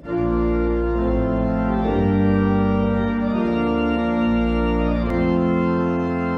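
Organ playing an opening voluntary in slow, sustained chords over a deep bass, the chords changing about once a second.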